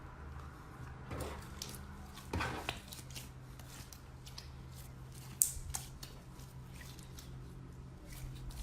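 Slime being squeezed and worked by hand, giving faint squelches, crackles and small clicks, with one sharper click about five seconds in, over a steady low hum.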